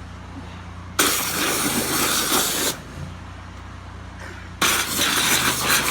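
Hotsy 3500 PSI pressure washer running with a steady low hum, its high-pressure jet fired in two loud bursts of about a second and a half each, cutting into a pumpkin.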